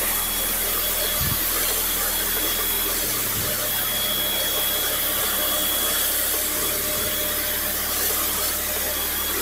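Parkside PHD 135 E5 electric pressure washer running steadily, its water jet hissing onto concrete paving stones.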